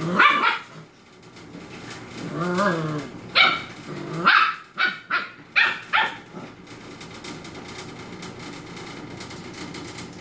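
Puppies yapping and growling while they play: short yaps at the start, a wavering growl about two seconds in, then a quick string of about six sharp yaps.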